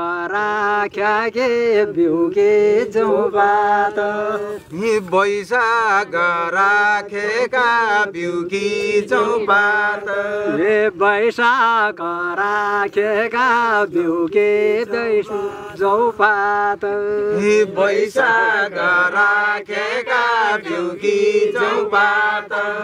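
A voice singing a slow, chant-like far-western Nepali rice-planting folk song (dhusko), drawing out long, wavering held notes with little break.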